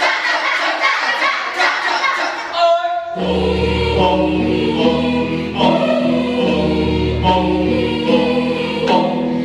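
Janger song sung by a group of young voices. It is rhythmic and busy for the first three seconds, then from about three seconds in it moves to held chords over a deep bass.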